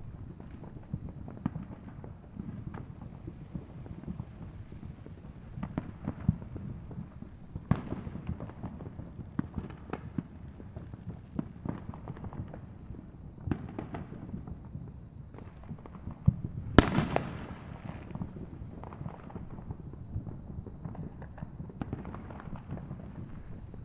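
Fireworks going off: a steady scatter of pops, thuds and crackles, with one much louder sharp bang and a fading crackling tail about seventeen seconds in.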